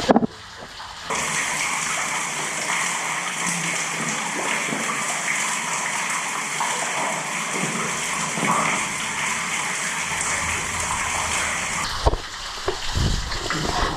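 Steady rush of water gushing or pouring inside a concrete stormwater drain tunnel, starting suddenly about a second in and cutting off suddenly near the end, with a few knocks after it.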